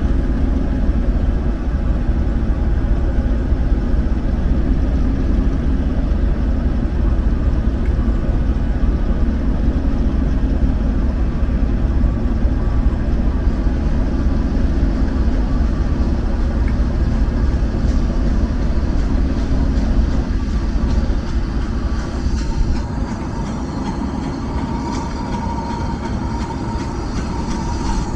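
BR Class 08 diesel shunter idling with a steady low rumble. Near the end the rumble eases a little and a higher tone comes in over it as a steam train draws into the station.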